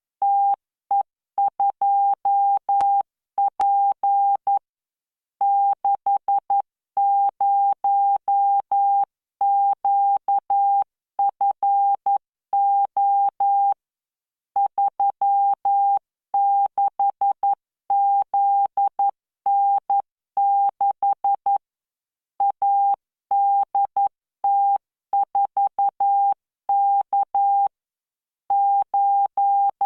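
Morse code practice tones from LearningMorse CW training software at 11 words per minute. A single steady-pitched beep is keyed in dots and dashes, with short gaps between letters and longer pauses between words.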